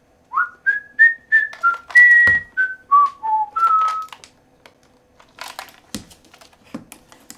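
A person whistling a short tune of about ten notes that steps up and then down, the first note scooping up into pitch. After it, a few light clicks and taps of handling.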